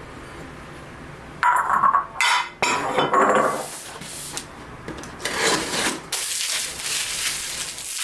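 Kitchenware being handled: dishes and utensils clattering and scraping, starting about a second and a half in, with a longer stretch of rustling and scraping near the end.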